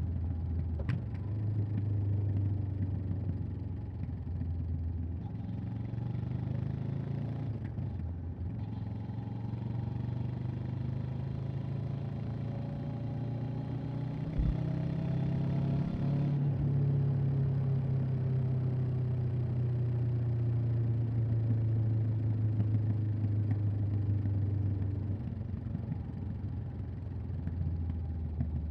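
Honda CB500X's parallel-twin engine running on the road. Its pitch rises steadily from about eight seconds in as the revs climb, then eases down slowly. Wind and road noise run underneath.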